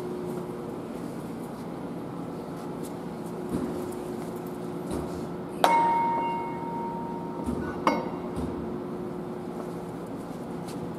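Steady workshop hum, then a sharp metallic clink about halfway through that rings on with one clear tone for about two seconds, and a second, lighter clink soon after: metal parts or tools knocking against metal.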